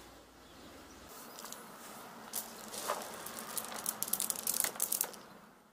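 Wood sawdust pellets dropped by hand into a bucket, clattering onto the pile: scattered clicks at first, thickening into a dense clatter in the second half, then stopping near the end.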